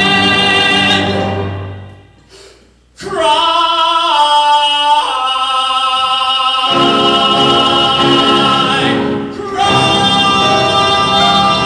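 A male singer sings a slow ballad into a microphone with musical accompaniment, holding long notes with vibrato. About two seconds in the sound dies away almost to silence for a moment. Then a new phrase starts and builds to a long held note, which breaks off briefly near the end before the singing goes on.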